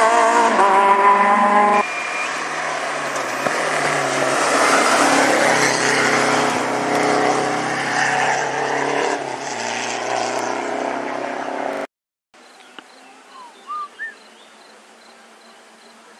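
Rally cars at full throttle on a stage: one engine revving hard as it pulls away, then after a cut a Renault 5 rally car approaches and passes through a bend, its engine swelling and fading over about ten seconds. The sound cuts off suddenly, leaving quiet outdoor ambience with a few bird chirps and a faint insect buzz.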